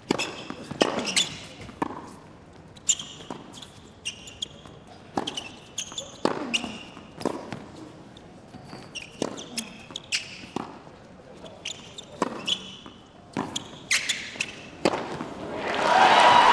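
Tennis rally on a hard court: sharp racket strikes and ball bounces about once a second, with sneaker squeaks between shots. Crowd noise swells near the end.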